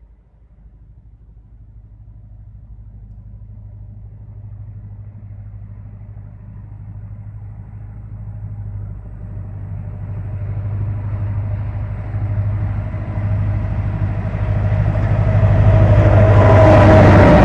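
A ŽS 661 class diesel-electric locomotive, an EMD-built type with a two-stroke diesel engine, approaching at the head of a freight train. Its steady low engine drone grows steadily louder as it nears, and it is joined near the end by wheel and rail noise as it passes close.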